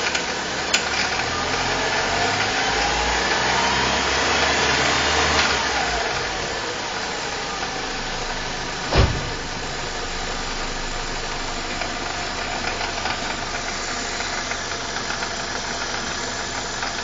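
BMW E46 318i's N42B20 2.0-litre four-cylinder engine running, its revs climbing over a few seconds and dropping back to idle, with a rattle and fine ticking that the owner traces to the intake area. A single thump comes just before the middle.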